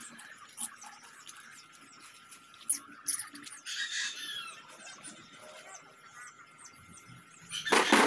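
Birds chirping in the background, with a few sharp metallic clinks as a steering box is handled on a sheet-metal workbench, and a louder clank just before the end as it is set down on the bench.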